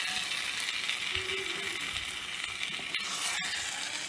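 Marinated chicken and onions frying in hot oil in a pan: a steady sizzle, with one sharp click about three and a half seconds in.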